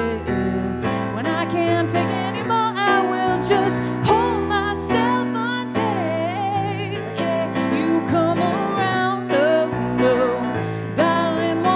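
A live song performance: a woman singing a melody with vibrato over sustained instrumental chords.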